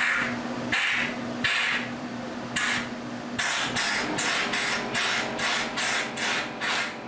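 A bottle brush scrubbing out a drilled concrete anchor hole in a few long hissing strokes over a steady hum, then a compressed-air blow gun firing short rapid blasts, about two to three a second, to blow the concrete dust out of the hole.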